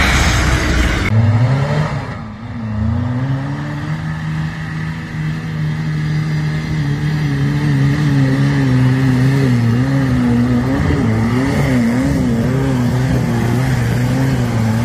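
Engine of a red tube-frame off-road prototype working under load up a steep, rutted dirt hill climb. The engine note dips briefly about two seconds in, then rises and holds, wavering as the revs rise and fall in the second half.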